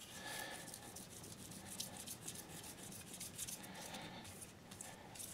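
Faint scratchy rubbing in short, irregular strokes: 6000-grit Micro-Mesh sandpaper worked by hand over a cold-glaze chip repair on a ceramic plate, the finest grit stage that polishes the repair's edge to a shine.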